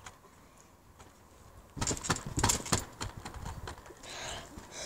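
A boy's bare feet and hands thudding on a trampoline mat: a quick run of knocks and thumps starting about two seconds in, after a quiet start.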